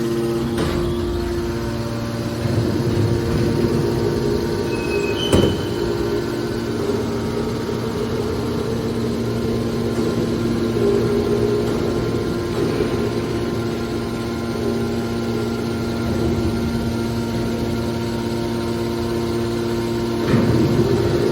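Car shear baler's hydraulic power unit running with a steady hum of several held tones, swelling a little at times as it works. A single sharp bang about five seconds in.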